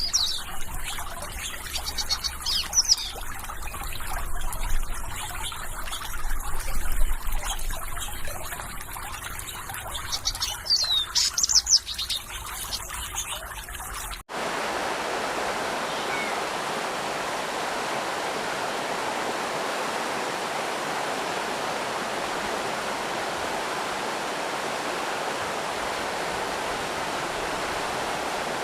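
Birds chirping in short, quick phrases over trickling, flowing water. After a brief break about halfway, a steady, even rush of flowing water with no birds.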